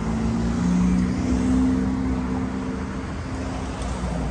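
A motor vehicle's engine hum swells during the first second or so and fades away after about three seconds, over a steady low rumble of street traffic.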